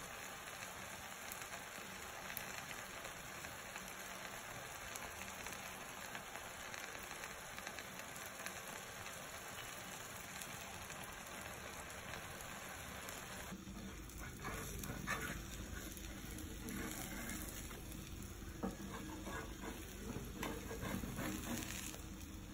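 Egg omelette faintly sizzling on a cast-iron tawa over a medium flame, a steady hiss. About fourteen seconds in, the sound shifts to a lower hum with scattered scraping clicks as a metal spatula works under the cooked omelette.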